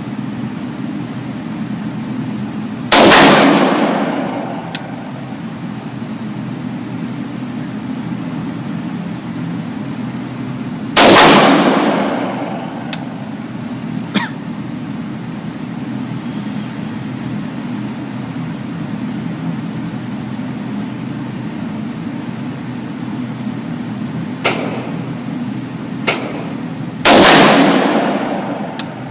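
AR-15 rifle firing three single shots several seconds apart, each a loud sharp crack with about a second of echo trailing off, over a steady low hum. A few light clicks fall between the shots.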